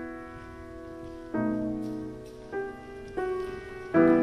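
Slow, gentle piano music: chords are struck and left to ring and fade, with a new chord about a second and a half in and several more in quicker succession towards the end.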